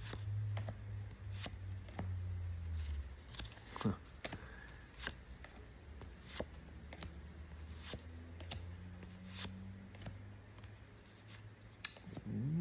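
A Pokémon trading-card booster pack being handled and its cards slid and flipped through: a string of light, irregular clicks, scrapes and crinkles, over a faint low hum.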